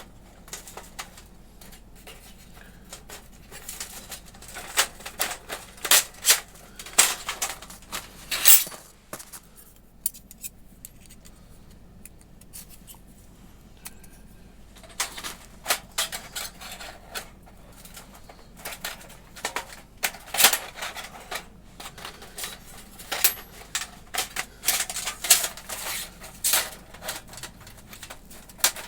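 Thin metal panels of a flat-pack camp stove clinking and clicking as they are slotted and fitted together during assembly, in irregular runs of sharp taps with a quieter pause in between.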